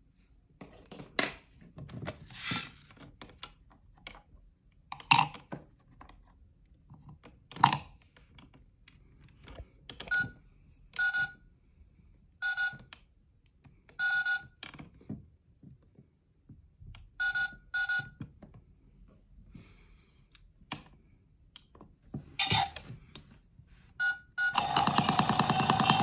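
Clicks and knocks of a lighter and of candles being handled, then a plastic toy washing machine's electronic button beeps, sounding again and again in short bursts. About two seconds before the end, the toy's drum starts spinning with a steady, loud electric whir.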